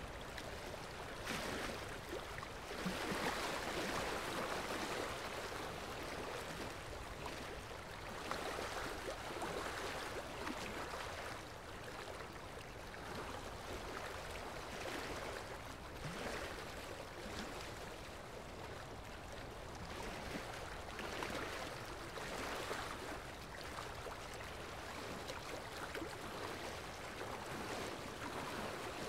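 Running water, a steady rushing that swells and eases every few seconds, with no voice or music over it.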